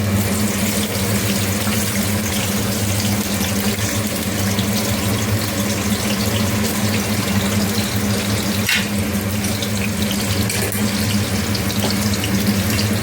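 Sliced onions sizzling steadily in hot oil in a kadai, frying for beresta; the sizzle starts abruptly as they go in. A steady low hum runs underneath.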